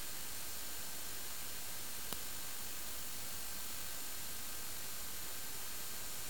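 Steady electronic hiss from a small onboard camera's microphone, with faint high whines running through it and a single click about two seconds in.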